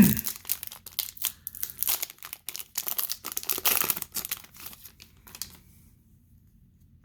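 Trading card pack wrapper being torn open and crinkled: a quick run of rustles that stops about five and a half seconds in.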